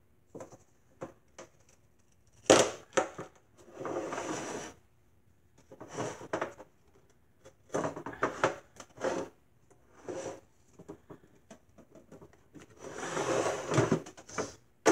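Things being moved about by hand: a run of knocks and clunks, the sharpest about two and a half seconds in, with two longer stretches of rustling or scraping, one around four seconds in and one near the end.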